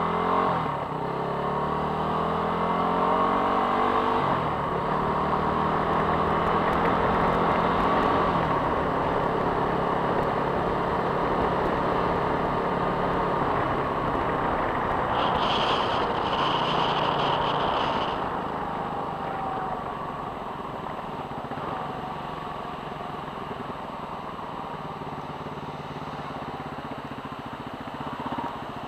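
Motorcycle engine pulling away on a gravel road, its pitch climbing in steps as it shifts up through the gears, then running steadily before easing off about two-thirds of the way through as it slows. A brief high tone sounds just before it eases off.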